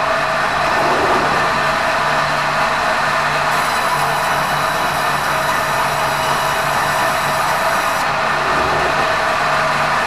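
Sawmill band saw running steadily: a constant mechanical din with a low hum beneath it.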